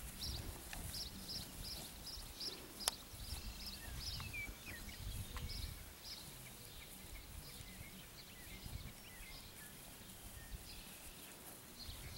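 Outdoor ambience: short high chirps, about two to three a second for the first few seconds and then more scattered, over a low rumble, with one sharp click about three seconds in.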